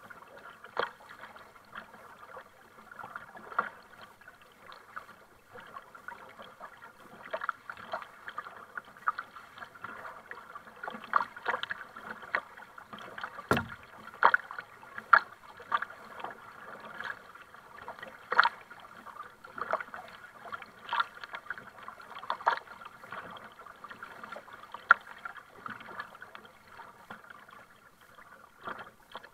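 Water splashing and slapping against a plastic sit-on-top kayak's hull as it is paddled, with double-bladed paddle strokes, in irregular short splashes several times a second. One sharp knock comes about halfway through.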